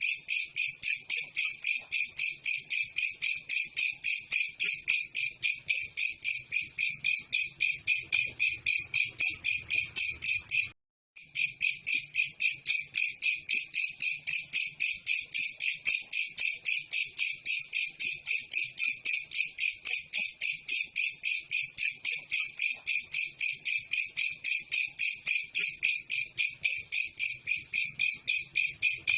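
Belalang kecek insect calling in a fast, even train of high-pitched chirps, with a short break about eleven seconds in.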